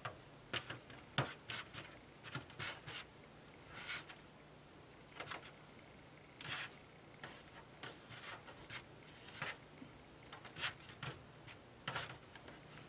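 Faint, irregular rustling and scraping as a person moves and crawls in a cramped attic and handles a coiled antenna cable, with a few sharp clicks.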